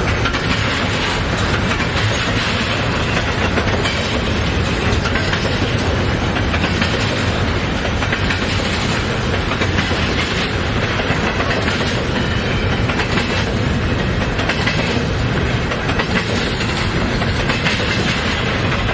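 Double-stack intermodal freight train's container well cars rolling past: a steady rumble of steel wheels on rail, with clickety-clack as the trucks pass over rail joints.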